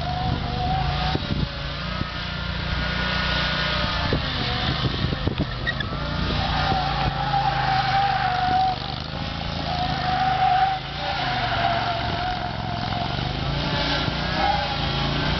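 Lawn mower's small engine running steadily, with a wavering higher-pitched whine that comes and goes over it and a few sharp knocks in the first seconds.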